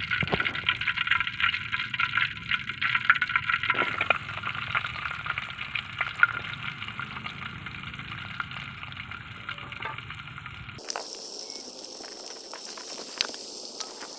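Hot oil sizzling and crackling in a wok as sliced shallots and chilies fry, with a spatula stirring them near the end. About eleven seconds in, the sizzle turns thinner and hissier.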